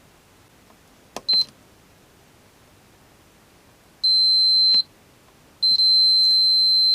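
Multimeter continuity beeper sounding as a key remote's push-button switch is tested. There is a short blip about a second in, then two longer steady high-pitched beeps, the second lasting over a second. The beeps show the switch is closing the circuit, so it is working.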